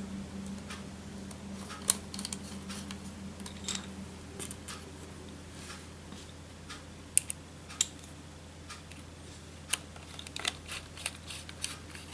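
Small screws being driven by hand into a laptop's metal hard-drive caddy holding a 2.5-inch SSD: scattered light clicks and ticks, more of them near the end, over a faint steady hum.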